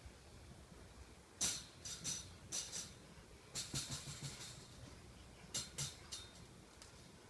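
Wire cage and drop trap rattling and clicking in several short bursts while a feral cat is moved from the trap into a transfer cage.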